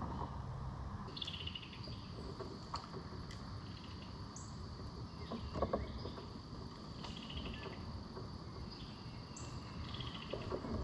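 Riverside ambience of insects: a steady high-pitched drone with a short buzzy trill repeating every two to three seconds, over a low hum of wind and water. A few soft knocks come about halfway through.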